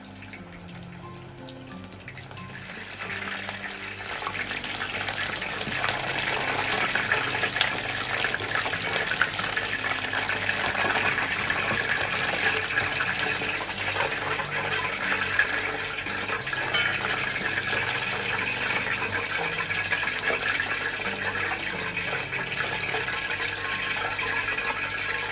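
Deep-fried karaage sizzling and crackling in hot oil: pieces of seasoned deer tongue frying, the sizzle swelling about three seconds in and then holding steady. Light background music plays underneath.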